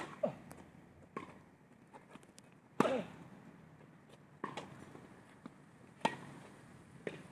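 Tennis rally: a ball is struck back and forth by rackets and bounces on the court, making about seven sharp hits spaced a second or so apart. The loudest strikes come at the start, about three seconds in, and about six seconds in.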